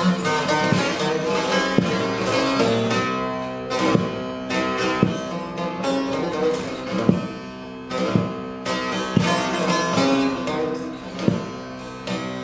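Divan sazı, a long-necked Turkish bağlama with a carved mulberry body, played solo: a plucked melody of sharp picked notes over sustained ringing strings, with brief dips in loudness between phrases.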